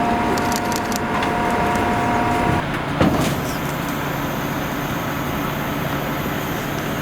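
Steady vehicle noise: a car running with road or traffic sound around it. Two steady high tones sound together for the first two and a half seconds, and a single sharp click comes about three seconds in.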